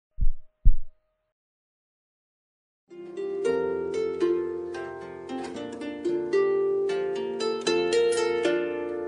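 Two short low thuds in the first second, then after a pause background music of quick plucked, harp-like notes starts about three seconds in.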